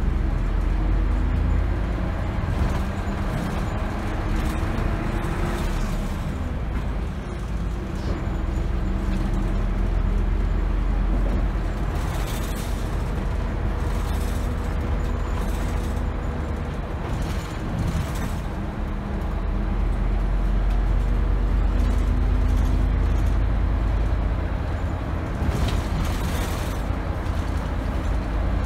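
Inside a city bus on the move: engine and road rumble that swells and eases as the bus drives, with a faint steady whine from the drivetrain. A few short hisses come near the middle and near the end.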